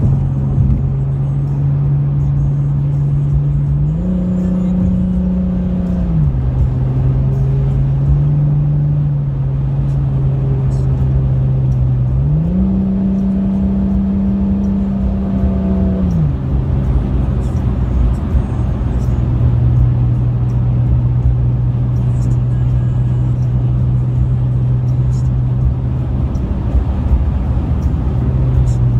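Car cabin noise at highway speed: a steady engine drone over tyre and road rumble. The engine pitch rises twice as the car speeds up, about four seconds in and again about twelve seconds in, each time holding for a few seconds before settling back.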